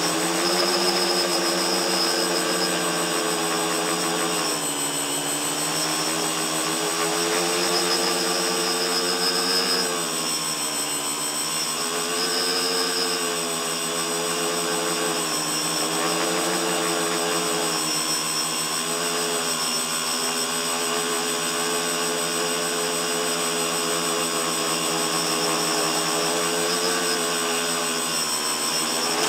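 Tricopter's three electric motors and propellers whining steadily, heard from a camera mounted on the craft, the pitch sagging and rising again several times as the throttle changes.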